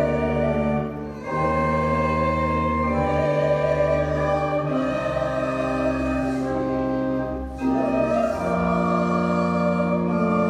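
A hymn sung by voices with organ accompaniment, in slow, held chords that change every second or two.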